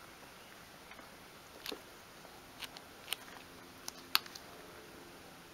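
Faint handling noises: a handful of light clicks and taps as fingers press down and hold a small model heater's glued parts.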